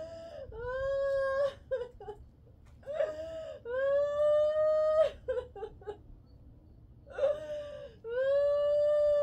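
A person crying: three long, level wails, each followed by a few short broken sobs; the last wail runs on past the end.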